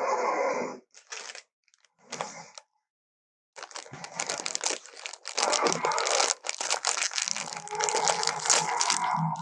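Film creature sound effect of crunching and crackling: a few short bursts, a pause, then a dense run of crunching from about three and a half seconds in.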